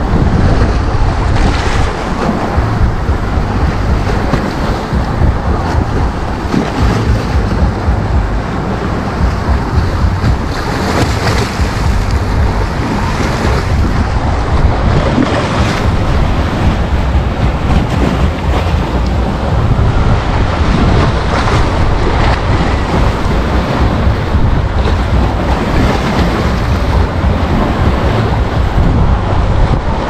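Small sea waves breaking and washing up onto the shore and against a concrete sea wall, swelling now and then as a wave comes in. Wind rumbles heavily on the microphone throughout.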